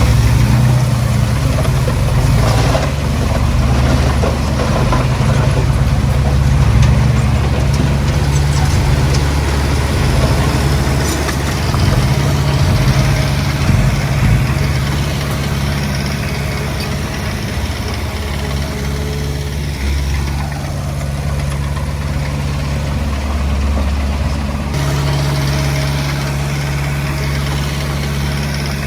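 Heavy diesel machinery engine running steadily. Its note shifts twice in the second half, with a few clanks and scrapes in the first seconds.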